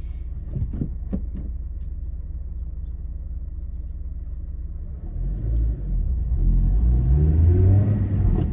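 Honda Integra Type R (DC5)'s 2.0-litre four-cylinder VTEC engine with a Mugen muffler, heard inside the cabin: a steady low drone while driving, then about five seconds in it grows louder and rises in pitch as the car accelerates.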